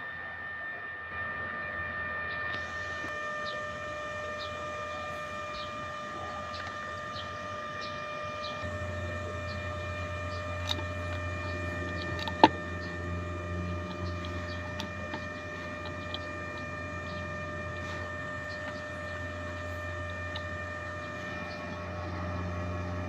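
A motor-driven machine running steadily with a hum and a few constant whining tones. Its low hum grows stronger about nine seconds in. There are scattered light ticks and one sharp click about halfway through.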